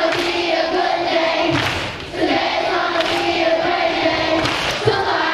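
A group of young voices singing a song together in unison, in long held notes with short breaks between phrases.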